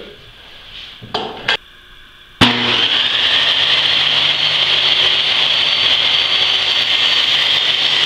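A few light knocks of a board being handled, then a table saw is switched on about two and a half seconds in and runs steadily with a high whine, spinning freely with no wood in the blade yet.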